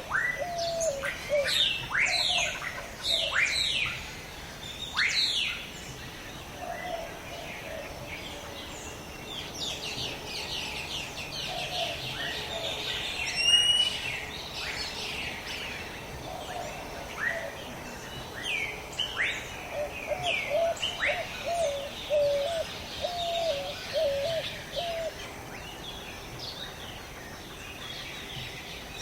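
Several birds calling together in a jungle ambience: many quick, falling chirps, a lower wavering call repeated in runs, and a single louder whistle about halfway through, over a steady background hiss.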